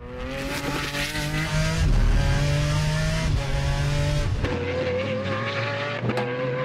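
Aston Martin V12 race-car engine running hard at high revs, its note stepping to a new pitch several times.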